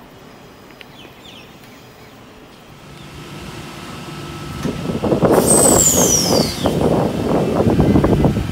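Stainless-steel double-deck Sydney electric train passing close by along a platform. Its rumble builds over the first few seconds, a high squeal slides down in pitch about five seconds in, then the wheels clatter rapidly on the rails.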